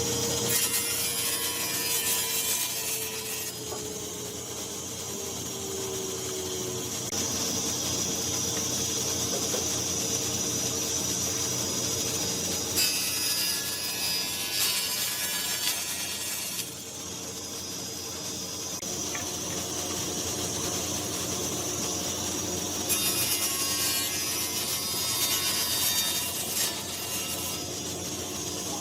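Wood being worked with tools: three stretches of louder rasping, saw-like noise, each a few seconds long, over a steady hum.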